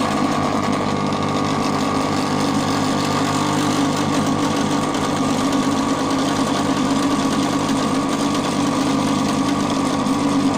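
No-name hot air rework station switched on at the start and running loud, with a steady buzzing rattle as the unit shakes. The noise comes from the vacuum seal on the bottom of the unit having been left in place.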